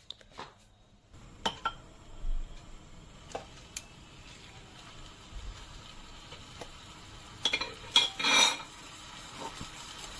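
Metal tongs and a spoon clinking and scraping against a nonstick frying pan as marinated chicken legs are laid into hot oil. The oil sizzles steadily from about a second in, and the loudest clatter comes near the end.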